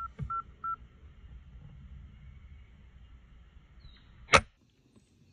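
A single sharp rifle shot a little over four seconds in, the sound cutting off abruptly just after it. Three short, high, even beeps come near the start, over faint low background noise.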